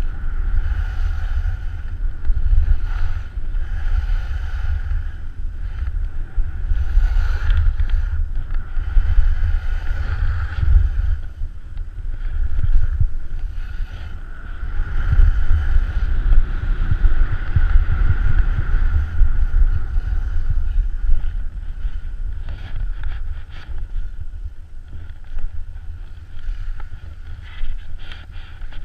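Wind buffeting an action camera's microphone during a fast ski run, heard as a gusting low rumble, with the scraping hiss of skis sliding and carving over hard-packed piste snow.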